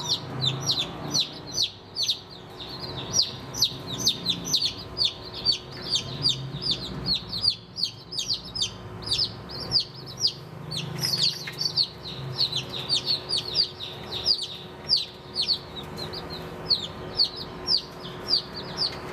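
Baby chicks peeping continuously: a dense stream of short, high, downward-slurred peeps, several a second, overlapping from more than one chick.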